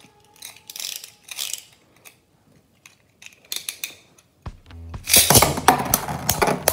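Two Beyblade Burst tops, Emperor Forneus and Z Achilles, are launched into a plastic stadium. They spin and knock together in a rapid run of sharp clicks and clacks that starts about five seconds in. Before that there are only a few scattered light clicks of parts being handled.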